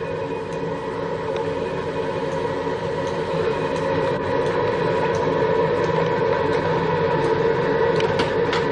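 A steady mechanical drone with several held tones and no change in pitch, with a few faint ticks near the end.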